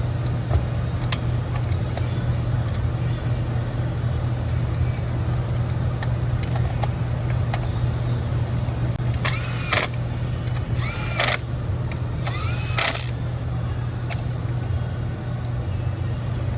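Three short whirs of a small electric power tool, each spinning up and winding back down, about a second and a half apart. Under them runs a steady low hum with scattered light clicks.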